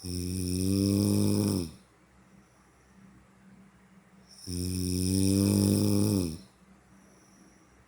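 Snoring: two long snores about four seconds apart, each nearly two seconds long and dropping in pitch as it ends.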